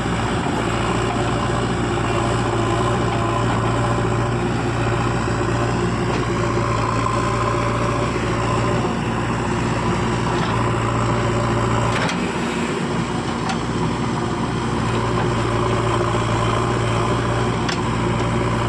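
Heavy diesel engine of a backhoe loader or tractor running steadily at constant speed. About twelve seconds in, the low hum briefly drops, with a couple of faint knocks.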